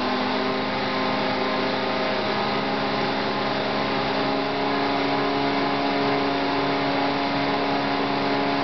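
Belt-driven marine combi unit on a test rig, driven by a DC brushless motor, running steadily: a machine hum with several held whining tones from the motor, belts and driven pulleys, the tones shifting slightly about two seconds in.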